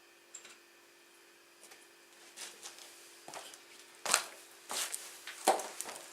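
Scattered knocks, clicks and scrapes of hand tools and parts being handled during motorcycle rear brake work, coming more often in the second half, with the loudest knocks about four and five and a half seconds in. A faint steady hum underlies them.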